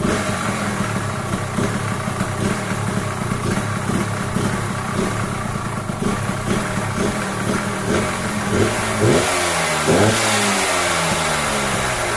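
Suzuki TRS two-stroke motorcycle engine running just after starting, idling steadily and then revved up twice near the end.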